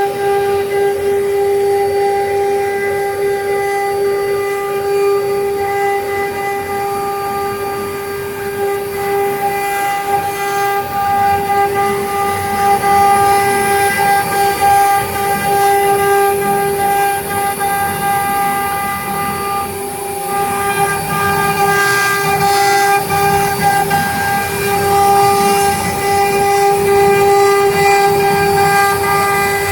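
Air-cooled spindle of a double-head wood CNC router running with a loud, steady whine over a rushing hiss.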